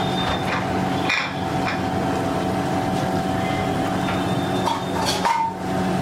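A steady background hum with a few light clinks of utensils on bowls, the sharpest about five seconds in with a brief ring.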